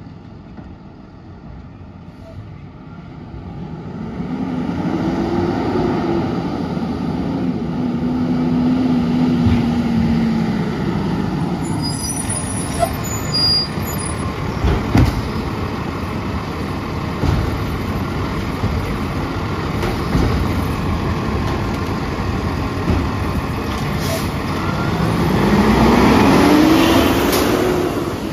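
Autocar ACX side-loader garbage truck pulling up and stopping, with its engine running and air brakes hissing. Its automated arm then grabs and lifts a recycling cart, with knocks as it grips, and the engine revs up near the end to drive the hydraulics.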